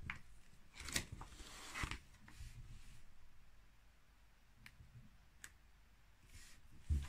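Faint crinkling and rustling of clear plastic binder pocket pages as a page of the card binder is turned, with a few sharp clicks, mostly in the first two seconds, then only occasional light ticks.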